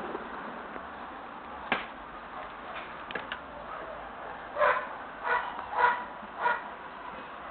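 A dog barking four times, a bit over half a second apart, in the second half. A single sharp knock comes about two seconds in.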